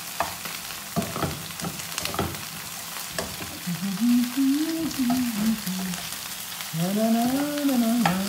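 Whole gambas sizzling in oil in a nonstick frying pan, with sharp clicks of metal tongs against the pan as they are turned. In the second half a voice hums two long, wavering notes over the sizzle.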